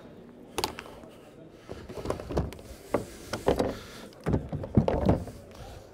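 Hollow plastic kayak parts knocking and clunking as the hatch cover and hull sections are handled: a string of irregular knocks.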